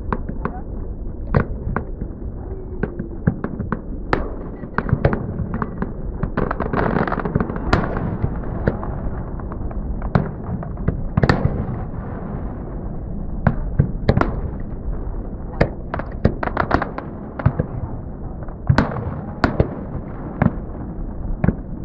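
Aerial fireworks display: shells bursting in an irregular rapid series of sharp bangs over a steady low rumble, busiest towards the end.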